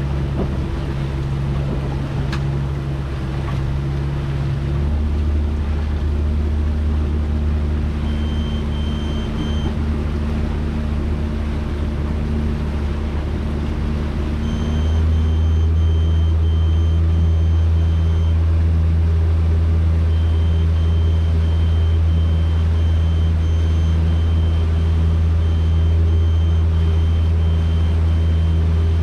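Fishing boat's engine running steadily underway, stepping up in pitch and loudness about five seconds in and again, louder, about halfway through as the throttle is opened. From about eight seconds on, a short high electronic beep repeats in runs of several beeps a second.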